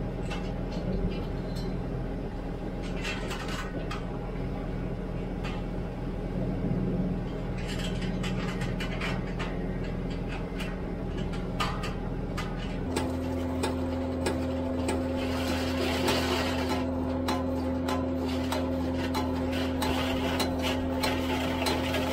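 An engine or motor hums steadily while old barbed wire clinks and scrapes against the steel spokes of a homemade wire-winding reel. About thirteen seconds in the hum changes pitch to a new steady drone.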